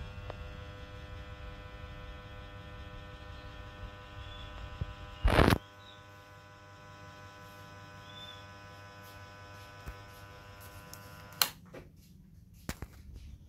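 Small hanging plastic ceiling fan running, its electric motor giving a steady, even hum with a whine over it. A brief loud knock about five seconds in, and a few sharp clicks near the end.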